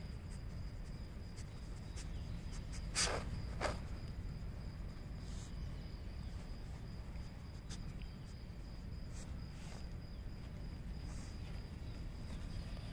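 Outdoor ambience: a steady low rumble under a constant high-pitched tone, with two short sharp sounds about three seconds in.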